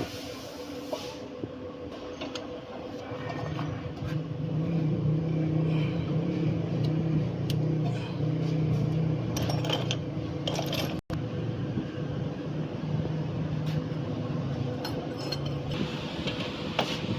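Metal tools and parts clinking during brake work on a car, over a steady low machine hum that starts a few seconds in.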